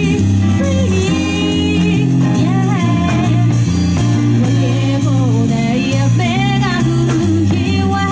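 Live band music: a sung vocal line over electric guitar, bass and drums.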